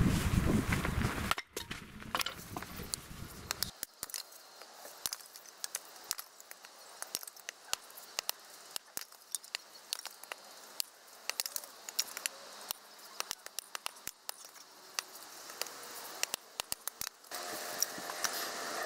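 Hatchet splitting a log into kindling on a wooden chopping block: a long string of sharp, irregular knocks and the clatter of split wood pieces.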